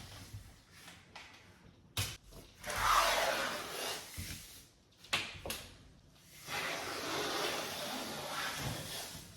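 Adhesive tape being pulled off the roll in two long rips, each started by a sharp click, the first lasting about two seconds and the second about three.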